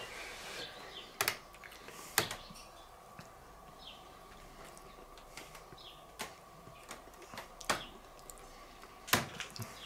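Several light, sharp clicks of cutlery against a plate, spaced irregularly a second or more apart, over a quiet background.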